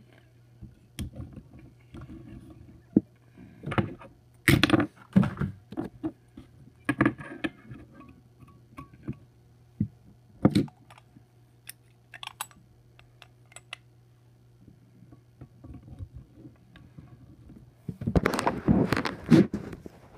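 Toy semi-truck trailers being handled and hooked together on a wooden tabletop: irregular clicks, knocks and small rattles, with a longer, louder stretch of rattling and scraping near the end.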